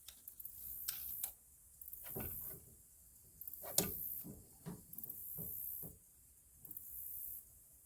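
Scattered clicks and knocks of something being handled, the sharpest about four seconds in, while a high, hissing buzz pulses in bursts of about a second each.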